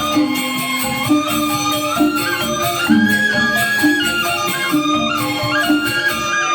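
Balinese gamelan angklung playing, with four-tone reong kettle gongs and bamboo grantangan, a ringing metallic melody stepping up and down over a steady beat.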